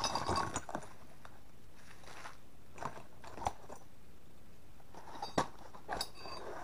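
A paper parts bag crinkling as it is handled and opened, then a few separate light clicks and one short metallic clink of small steel gun parts, such as an SKS sling swivel, knocking together in a hand.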